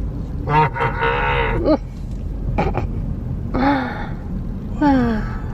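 A person's voice making several drawn-out, wordless vocal sounds, the last two falling in pitch, over a steady low rumble.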